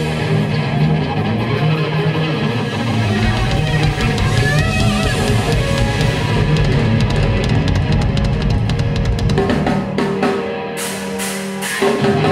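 Live rock band playing: electric guitar, bass guitar and drum kit. The band drops to a quieter stretch near the end, then comes back in loud.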